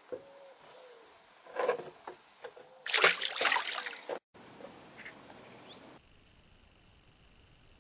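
A caught fish released back into the water: a splash lasting about a second, about three seconds in, after a few fainter knocks and water noises. It cuts off suddenly, and a faint steady hiss follows.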